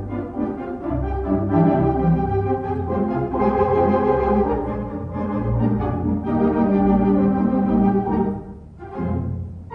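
Background music score of held organ chords, changing every second or so, easing off near the end.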